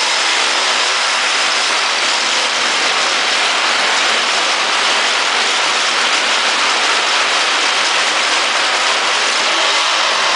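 Homemade friction welder running: a motor-driven spinning metal rod grinds against a fixed rod in a steady, loud noise of metal rubbing on metal, the friction heating the joint until it glows red and throws sparks.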